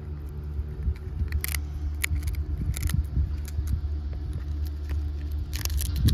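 Steady low wind rumble on the microphone, with scattered short crackles and rustles, the densest cluster near the end.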